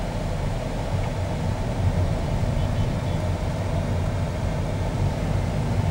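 Steady low rumble of engine and road noise heard from inside a car moving slowly through traffic.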